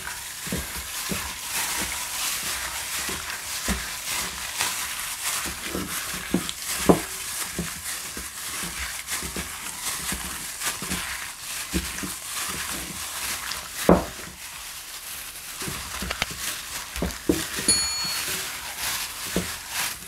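Wet squelching and squishing of raw chicken cubes being massaged by hand in a mayonnaise-and-spice marinade in a glass bowl, with the crinkle of disposable plastic gloves. Twice a sharper knock, as the hands or chicken hit the bowl.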